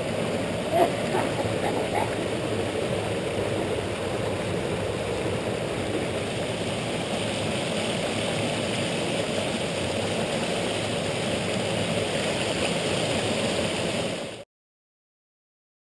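Spring water pouring from a row of spouts and splashing into a concrete trough: a steady rush of splashing water that cuts off suddenly near the end.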